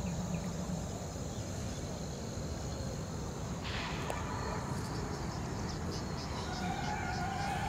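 Outdoor ambience: a steady low rumble on the microphone with a faint, thin, high insect drone. Melodic background music fades in near the end.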